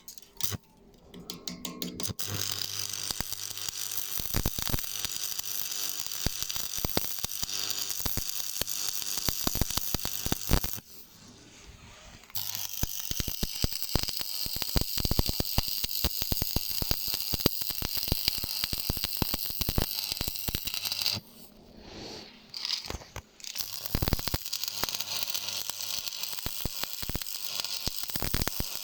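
Stick (shielded metal arc) welding arc crackling and sizzling steadily as the flux-coated electrode burns. The arc breaks off about eleven seconds in and again about twenty-one seconds in, each time struck again after a second or two.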